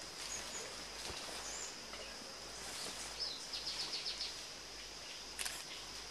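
Forest ambience: a steady high insect hum with a few short bird chirps, and about halfway through a quick run of rapid chirps. A sharp click comes near the end.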